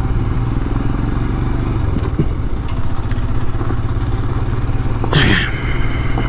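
Royal Enfield Scram 411's air-cooled single-cylinder engine running steadily at low speed, with light clatter from the bike rolling over gravel. A short sweeping sound rises and falls about five seconds in.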